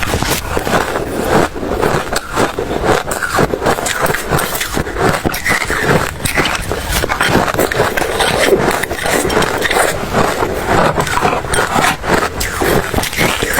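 Ice being chewed close to the microphone: a dense, continuous run of irregular crunches with no pause.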